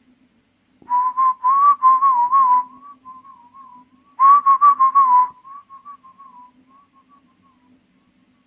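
A wavering whistle-like tone near 1 kHz comes from the phone's speaker as the app starts playing the mini camera's microphone audio. It comes in two loud, choppy stretches, each trailing off into a fainter warble, over a low steady hum.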